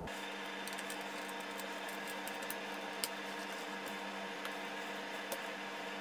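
Steady hiss with a faint hum, and a few faint small clicks from a small screwdriver driving the hard-drive bracket screws into a MacBook Pro.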